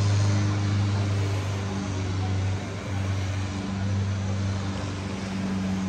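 A steady low motor hum, a machine or engine running without letting up.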